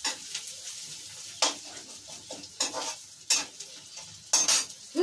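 Onions frying in hot oil in a steel kadhai, sizzling steadily, while a metal ladle is stirred hard through them, scraping and clinking against the pan about eight times at irregular intervals.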